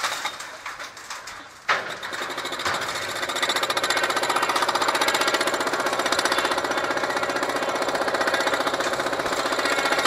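Remote-controlled jackhammer pounding the concrete of an ore dock. The hammering dies away in the first second or so, then starts again abruptly and keeps up a rapid, steady stream of blows.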